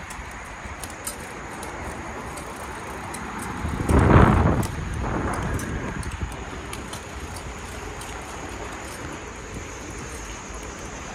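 Wind rushing over a handheld phone's microphone while riding fast along a paved path, with a louder gust about four seconds in.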